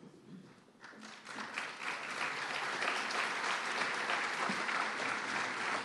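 Audience applauding. The clapping starts about a second in and swells quickly to a steady level.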